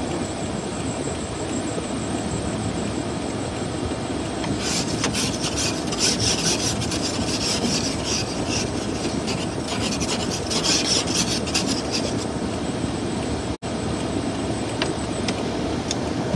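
Scratchy rubbing over a steady low rumble. The rubbing is strongest from about four and a half to twelve seconds in, and the sound cuts out for an instant near the end.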